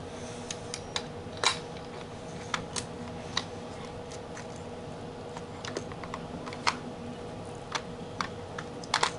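Scattered sharp clicks and light taps of a hand tool working a part of an aluminium throttle body to bend it off, over a faint steady hum.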